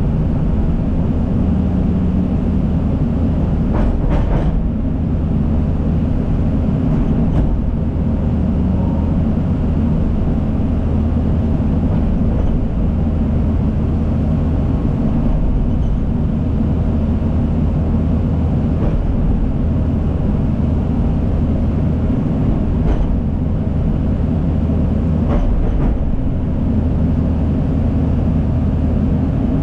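Heavy diesel earthmoving machinery, a Case 450 crawler dozer and a John Deere excavator, running steadily with a low engine rumble, with a few faint knocks from the work.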